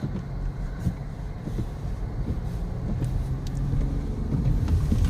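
Audi car's engine pulling away in first gear on snow, growing gradually louder as it gains speed.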